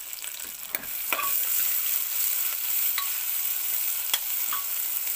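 Sliced onions sizzling in hot mustard oil with whole spices and crushed ginger-garlic in an aluminium pressure cooker, stirred with a spatula. The sizzle grows louder about a second in, and the spatula clicks against the pot a few times.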